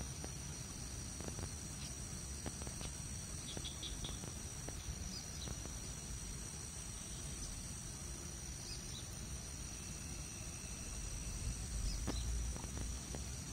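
Insects chirping in a steady high drone, with a low rumble underneath and scattered light clicks.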